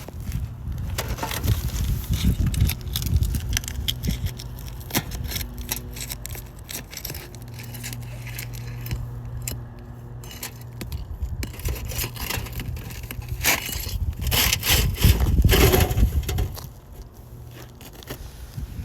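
Roof shingles being pried and lifted, with irregular scraping and crackling as the sealed tabs tear loose. It is loudest about three-quarters of the way through. This lifting leaves the shingles creased or marked with transfer damage.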